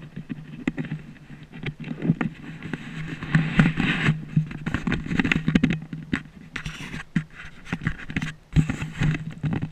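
Wind buffeting a body-worn camera's microphone, with irregular crunching and scuffing as the wearer moves about on pea gravel, over a steady low hum.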